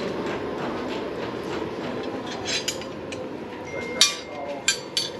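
Loose metal car parts clattering and knocking as they are sorted through by hand, over a steady hum, with a few sharp metallic clinks near the end.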